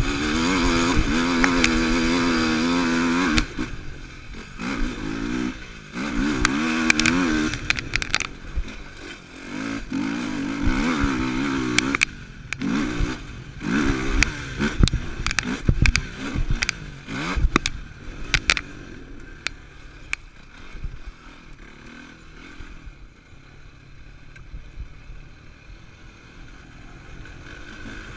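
Yamaha YFZ450R sport quad's single-cylinder four-stroke engine, heard from on board, revving up and backing off again and again, with sharp knocks and clatter over the bumps. From about twenty seconds in the engine runs softer and lower.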